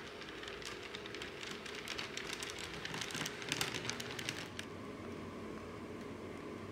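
HO scale model train, a steam locomotive pulling tank cars, rolling past with its wheels making a rapid, uneven clicking on the track. The clicking stops about four and a half seconds in, leaving a quieter steady hum.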